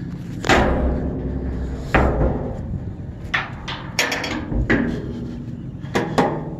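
Heavy steel smoker cabinet door being swung shut and latched, with the metal racks and fittings knocking: a string of about seven metal clanks and bangs, each ringing briefly, the loudest two in the first two seconds.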